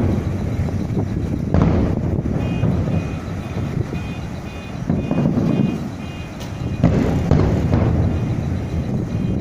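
Aerial fireworks bursting: booms with a long rolling rumble, the biggest about one and a half, five and seven seconds in. A short high beep repeats about twice a second from about two and a half seconds in.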